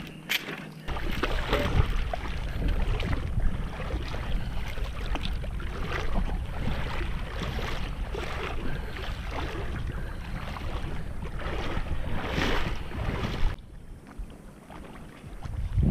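Wind buffeting the microphone, with a heavy low rumble and irregular sloshing and splashing of shallow water. The sound drops off suddenly near the end.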